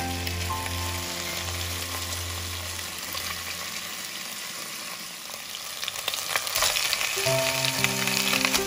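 Pork hocks sizzling as they brown in hot oil in a pan, with sharp clicks of metal tongs turning them. The sizzle grows louder about two-thirds of the way through.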